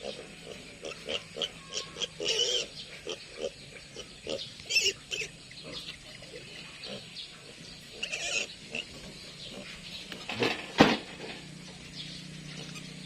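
Piglets grunting and squealing in many short calls, with several louder squeals, the loudest about eleven seconds in.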